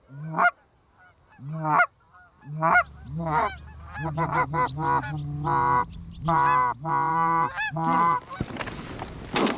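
Canada goose honks and clucks, a few at first, then coming thick and fast. Near the end comes a single shotgun blast.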